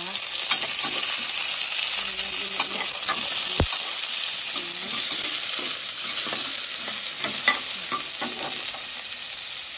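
Chicken pieces sizzling as they sauté with onion and garlic in a pot, the stage where the chicken is browned before water goes in. A spoon stirs the pot, with scattered short clicks of the spoon against the pot over the steady sizzle.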